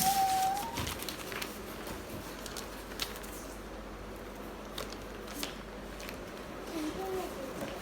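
Handling noise from unpacking and assembling an exercise bike: scattered light clicks and knocks over a rustling background. A steady high tone sounds for about the first second.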